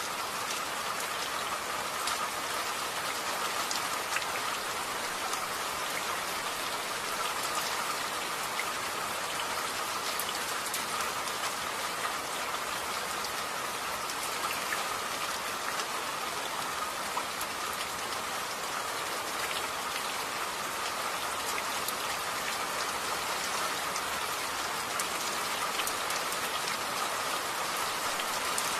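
Steady rain falling: a constant, even hiss dotted with fine ticks of drops.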